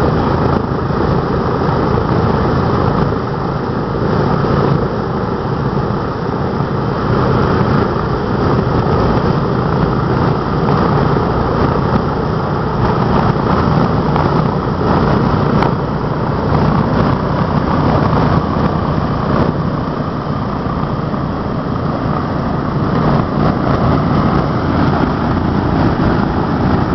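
B-17 Flying Fortress's Wright R-1820 Cyclone radial engines running steadily after startup, a loud, even propeller-driven drone.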